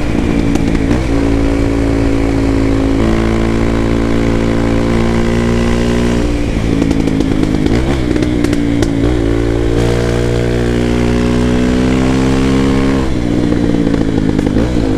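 Honda XR250 Tornado's 250 cc single-cylinder four-stroke engine running under way through a Belparts Classic aftermarket exhaust, its note falling and rising several times as the throttle and gears change. A short run of crackles and pops comes from the exhaust as the throttle closes around six to eight seconds in.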